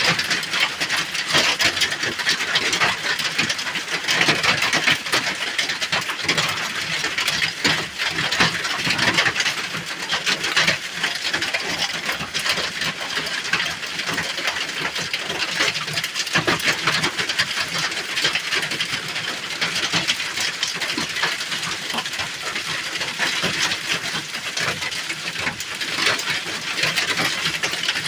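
Hail pounding on the roof of a small hut: a dense, unbroken clatter of countless stone impacts.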